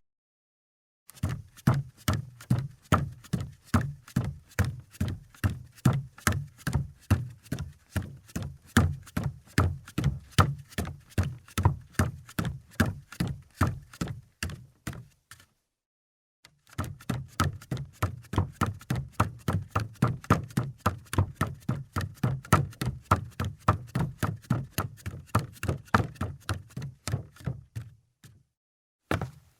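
Footsteps walking on a wooden floor at a steady pace, each step a dull thud. The walking pauses for about a second and a half midway, then resumes and stops again near the end.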